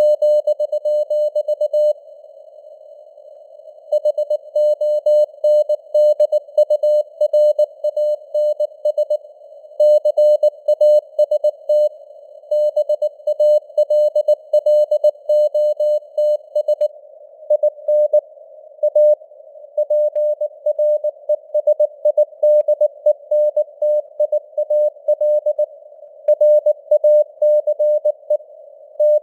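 Morse code (CW) at 19 words per minute: a single mid-pitched tone keyed into dots and dashes, with longer pauses between words. It plays over faint simulated radio static, and the signal strength rises and falls (QSB).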